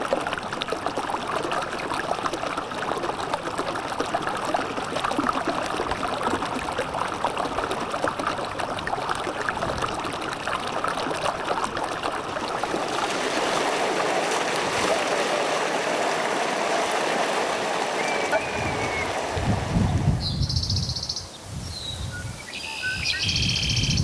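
A stream of running water, a steady even rush, with occasional birds chirping. Near the end the water sound drops away, leaving short high bird calls and some low rumbles.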